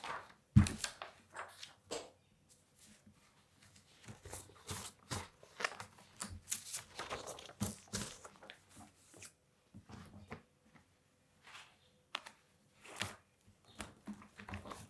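Sheets of paper being handled and leafed through on a desk: irregular rustles and flicks, with one sharp thump about half a second in.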